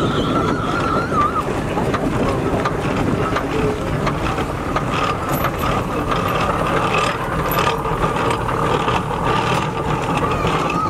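Steam traction engine driving slowly past over grass, its engine and running gear working. A thin, wavering high tone runs behind it throughout.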